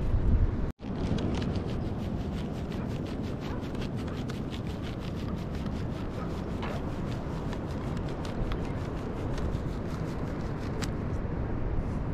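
Flour being shaken through a plastic colander and rubbed by hand over a large metal tray: a steady rustling rasp with many fine ticks, over a low rumble.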